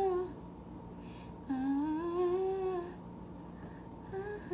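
A woman humming. A note fades out just after the start, then a longer note about a second and a half in rises in pitch and holds for about a second and a half. Two short hummed notes come near the end.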